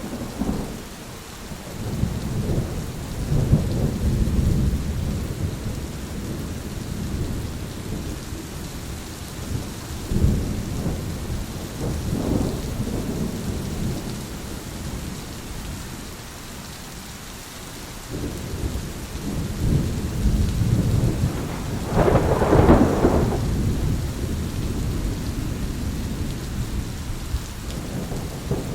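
Thunderstorm: rain falling steadily while thunder rumbles low again and again, with one louder, sharper peal about three-quarters of the way through.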